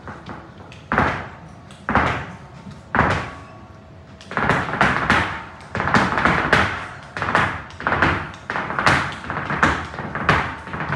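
Flamenco footwork: a dancer's heeled shoes stamping on the stage. Three single stamps about a second apart, then about four seconds in a fast, uneven run of stamps.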